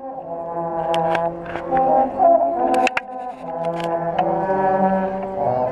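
Marching band brass playing sustained chords that shift from one to the next, with a handful of sharp drum and percussion hits, heard close up from the bass drum line.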